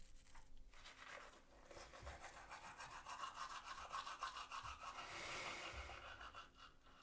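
Manual toothbrush scrubbing teeth in quick back-and-forth strokes, starting about a second in and stopping just before the end.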